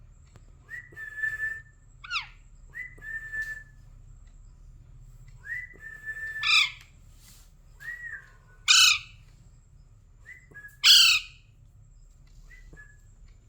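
Pet parrot giving short whistled notes, several falling in pitch, broken by three much louder calls in the second half.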